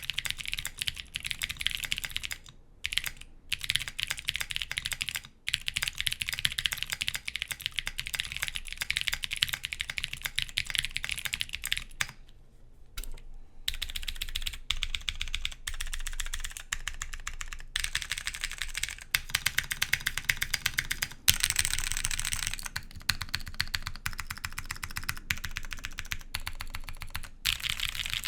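Continuous typing on a custom 60% mechanical keyboard with clicky Razer Green switches lubed with 205g0, an aluminium plate and GMK doubleshot keycaps: a fast, dense clatter of key clicks with a few brief pauses.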